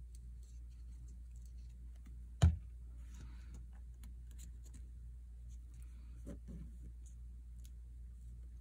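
Quiet hand-crafting work with paper over chipboard: faint rustles and small taps, with one sharp knock about two and a half seconds in, over a steady low hum.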